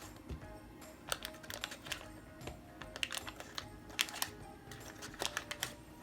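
Light, irregular taps and clicks of sliced butter pieces being put into a mixing bowl of flour, with quiet background music.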